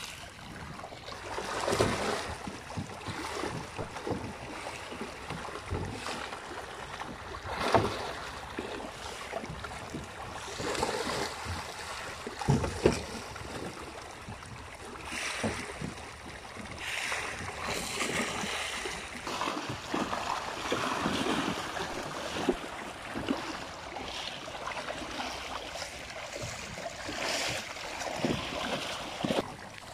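Pond water splashing and churning as a crowd of pangasius catfish feed at the surface, with irregular louder splashes among a continuous rush.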